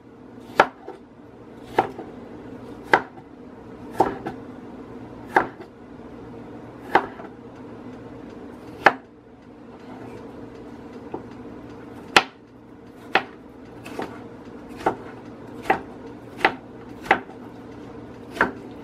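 Chef's knife chopping a peeled cucumber on a wooden cutting board: single sharp knocks of the blade on the board, about one a second at an uneven pace and quicker near the end, over a low steady hum.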